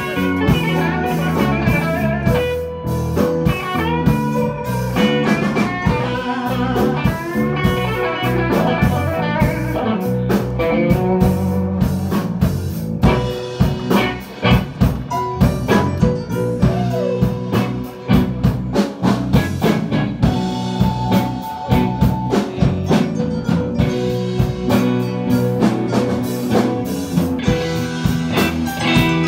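Live band music: an electric guitar playing lead lines with bent notes over a drum kit.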